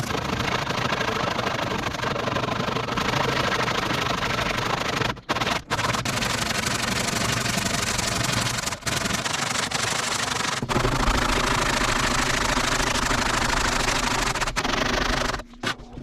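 Steady sanding noise of an abrasive working a knife-making piece, broken off abruptly a few times and stopping near the end.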